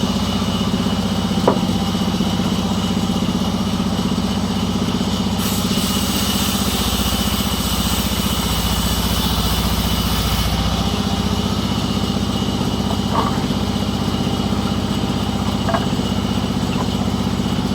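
Engine running steadily at one speed, with three short sharp clicks.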